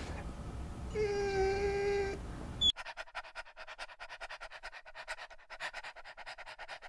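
A dog whining once, a steady high whine lasting about a second. About 2.7 s in this gives way to a dog panting fast and evenly, about five breaths a second.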